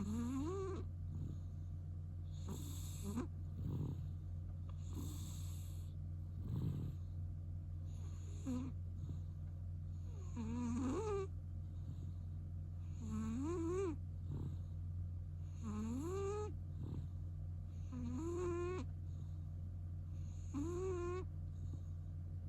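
Sleeping cat snoring with a wheezy nasal whistle that rises in pitch on each breath, about every two and a half seconds, over a steady low hum. The whistling snore comes from chronic rhinitis left by cat flu, which the owner has been told will not clear up.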